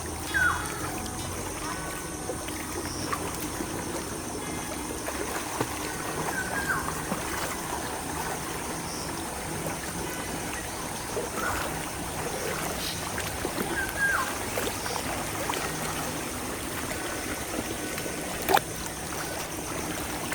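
River water trickling and flowing steadily over stones in a shallow stream, with a few short high chirps here and there and a single sharp knock near the end.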